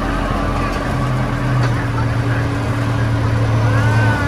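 Miniature park train running along its track: a steady engine hum over the rushing noise of the ride. A stronger low hum comes in about a second in and drops away near the end.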